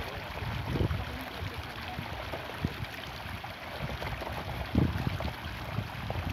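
Wind buffeting the microphone outdoors: irregular low rumbling gusts over a steady hiss, with a stronger gust near the end.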